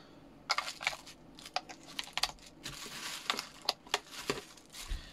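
Plastic packaging crinkling and rustling as it is handled, in an uneven run of short crackles and clicks.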